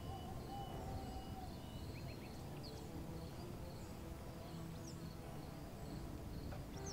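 Quiet outdoor ambience: a steady low rumble with a few short, high chirps scattered through it.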